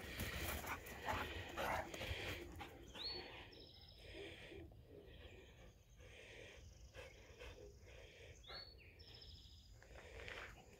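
Spanish Mastiff and American Akita puppies romping: scuffling, running paws on dirt and grass for the first few seconds, then dying down to faint outdoor sound.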